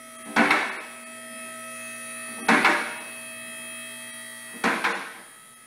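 Two-post car lift's electric hydraulic pump motor running with a steady hum as it raises the car, with three loud clacks about two seconds apart as the lift's safety locks catch.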